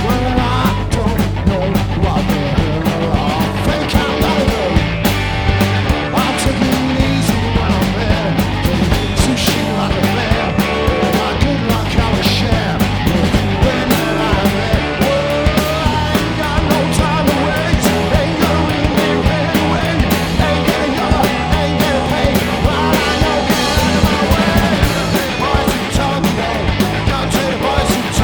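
A rock band playing live: a steady drum beat with electric guitar and bass, and singing over it.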